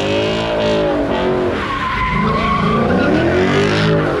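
Ford Mustang GT's V8 revving up and down twice while its rear tyres squeal and skid through donuts.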